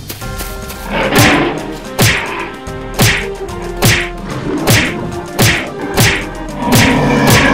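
A run of eight or nine sharp whacking hit sound effects, spaced a little under a second apart, over steady background music.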